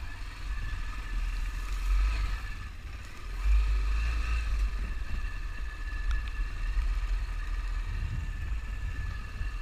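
Honda NX400 Falcon's single-cylinder engine running as the motorcycle is ridden, with a deep rumble that swells about three and a half seconds in.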